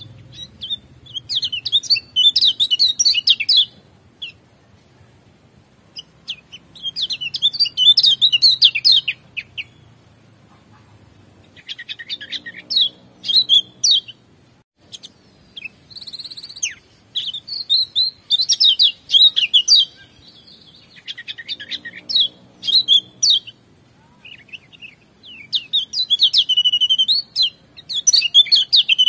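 Kecial kuning (Lombok white-eye) singing a fast, high twittering song in phrases of one to three seconds with short pauses between them. A thin steady high tone runs underneath.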